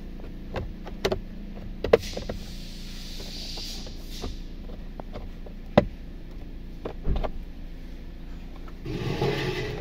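Scattered clicks and knocks of a hand tool and hard plastic trim as the steering column cover is worked on and its lower screw undone, over a steady low hum, with a soft hiss between about two and four seconds in.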